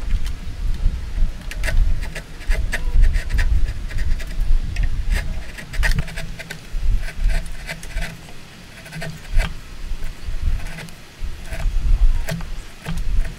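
Hand-pushed chisel paring wood, scraping in short irregular strokes with light clicks as thin shavings curl off, over dull low knocks.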